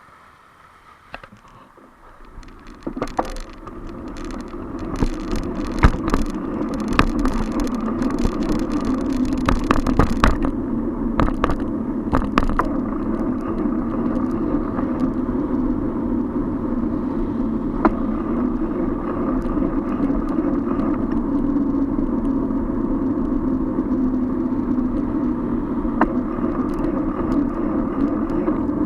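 Bicycle ride at speed: a steady rush of wind and road noise that builds up over the first few seconds as the bike picks up speed, then holds. A run of sharp clicks and rattles comes in the first dozen seconds.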